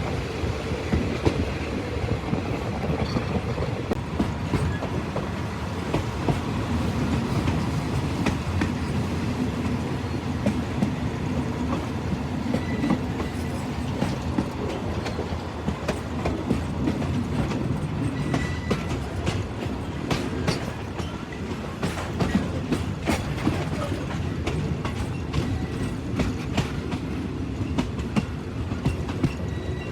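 A train running along the track: a steady rumble with irregular clicks and clacks of the wheels over the rails throughout.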